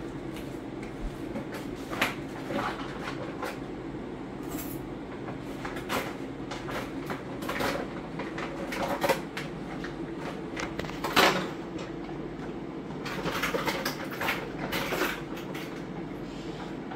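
Scattered knocks, clicks and clunks of kitchen things being handled at a sink by a dish rack, the loudest about eleven seconds in, over a steady low hum.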